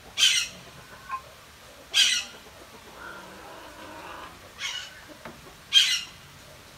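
A bird's harsh, rasping squawk, repeated four times, each call short and loud.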